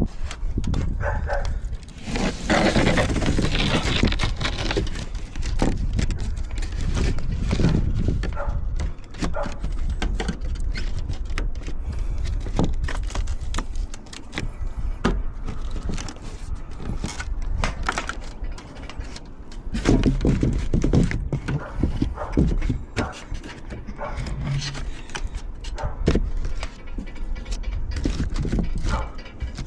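Irregular knocks and taps of hand work on roof framing over a low rumble, with several louder bursts of impacts along the way.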